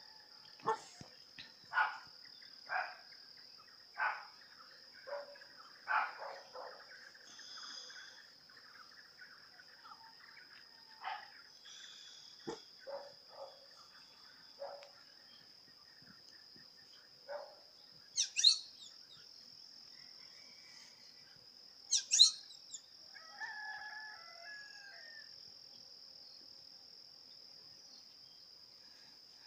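Rural dawn chorus: a steady high insect drone under scattered short bird calls, with two loud, sharp high chirps just past the middle. A rooster crows in the distance.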